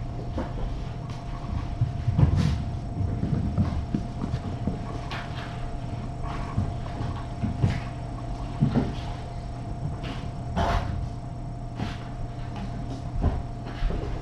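Kittens scampering and wrestling across a rug and floor: scattered, irregular thumps and scuffles over a steady hum.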